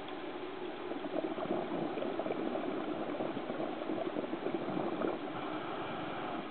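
Scuba diver's exhaled regulator bubbles burbling, heard underwater: a crackly bubbling stream that swells about a second in and eases off after about five seconds.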